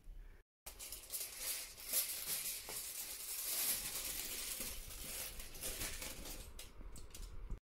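Aluminium foil crinkling and crackling as it is peeled back off a covered dish.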